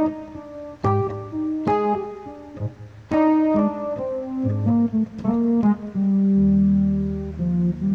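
Electronic keyboard played by hand: slow single notes and chords, struck roughly once a second, with a long held low note near the end.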